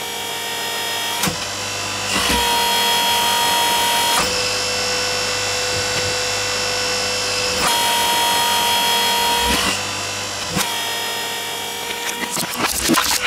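Hydraulic press pump and motor running with a steady whine that shifts in pitch in several sudden steps as the ram rises and comes back down; the later steps mirror the earlier ones.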